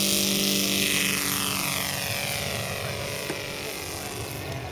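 Saito three-cylinder four-stroke radial engine of a scale RC Deperdussin model running at full throttle through the takeoff. Its pitch drops slightly as it passes, and the sound fades as the model climbs away.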